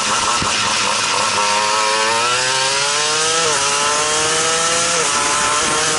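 Two-stroke shifter kart engine accelerating hard out of a corner. Its pitch climbs, drops sharply as it shifts up about halfway through, climbs again, and drops at a second upshift a second and a half later.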